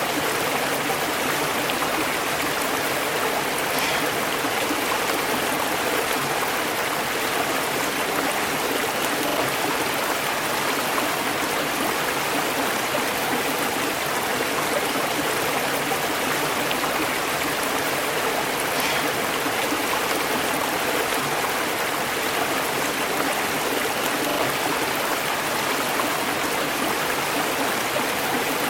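River water flowing over rocks, a steady rushing and burbling that holds the same level throughout.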